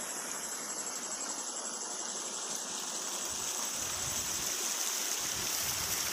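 A steady rushing hiss with a high, thin insect trill running over it, growing slightly louder toward the end.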